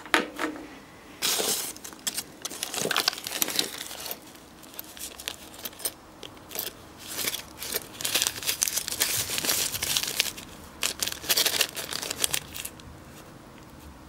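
Plastic parts bags crinkling and rustling in irregular bursts as they are handled and picked through. There is a short knock right at the start.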